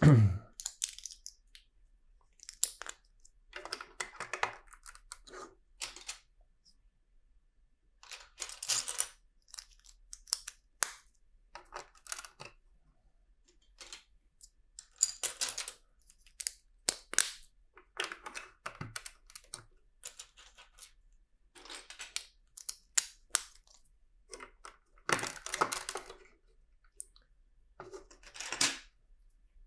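Plastic LEGO pieces being handled and pressed together: irregular clusters of small clicks and clatter every second or two, with short quiet gaps between.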